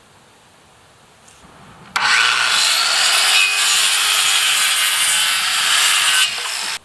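Power saw cutting for about five seconds, with a loud steady hiss over a faint whine. It starts and stops abruptly.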